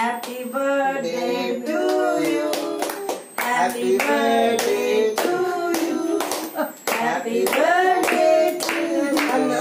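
People singing a birthday song while clapping in time, the singing pausing briefly between lines.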